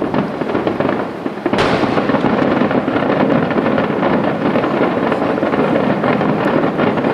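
Fireworks display: a sudden loud burst about one and a half seconds in, then a steady din of overlapping bangs and crackling.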